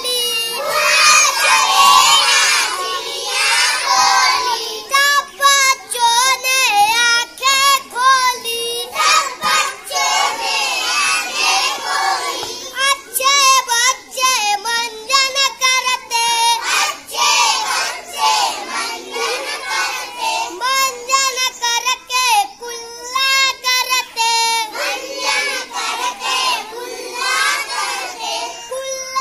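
A boy singing a children's action song in a high child's voice, phrase after phrase with short breaks between lines.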